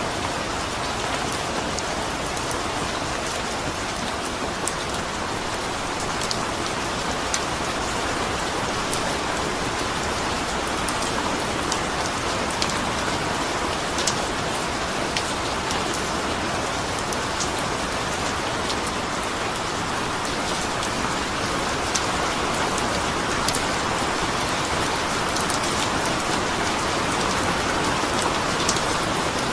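Steady rain falling on a surface, an even hiss with scattered individual drop clicks.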